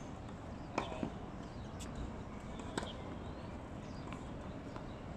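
Tennis ball bouncing on a hard court: a few sharp knocks in the first three seconds, over steady outdoor background noise.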